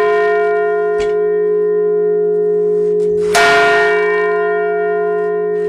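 Small church bell ringing on from a strike just before, then struck again about three seconds in and ringing on with several clear overtones. A faint short knock about a second in.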